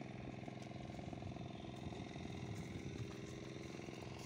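An engine running steadily at an even speed.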